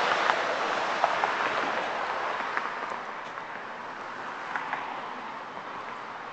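City street traffic: a steady hiss of cars and tyres going by that slowly fades, with a few faint ticks.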